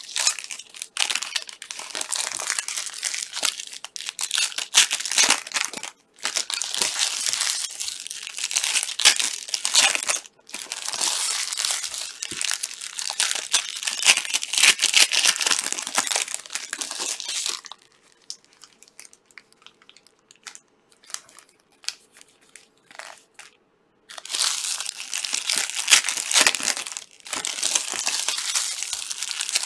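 Plastic wrappers of trading-card packs crinkling and crumpling as they are opened and handled, in long dense stretches with a quieter pause of about six seconds two-thirds of the way through.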